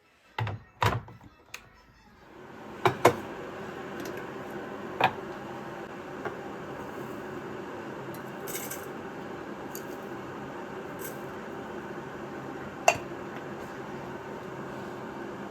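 Kitchen clatter of a few knocks, then a kitchen appliance starts about two seconds in and runs with a steady hum. Now and then a single knock or clink sounds over it.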